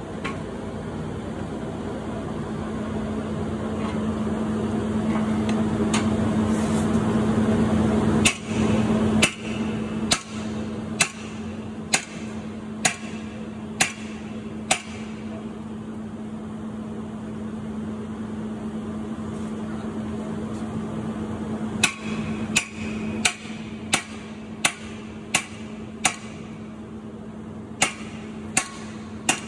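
Metal forcible-entry tools hammering on a steel door training prop: sharp metallic strikes about one a second in a run of about eight, a pause, then two more runs. A steady low hum runs underneath.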